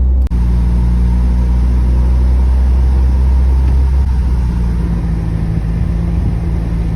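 Car interior noise while driving: a steady low engine and road rumble, the engine note shifting about four seconds in.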